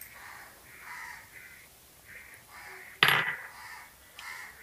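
Short, repeated bird calls, about two a second, in the background. A single sharp clink about three seconds in is the loudest sound.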